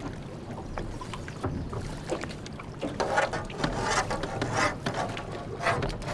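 Water lapping against the hull of an anchored boat, a run of small, irregular splashes.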